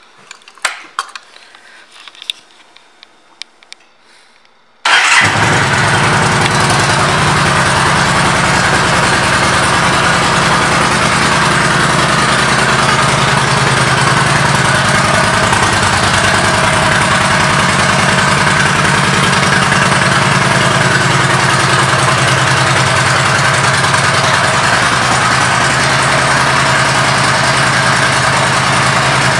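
A few light clicks, then about five seconds in a 2013 Yamaha V Star 1300 Deluxe's V-twin engine, fitted with an aftermarket Cobra exhaust, starts and settles into a steady idle.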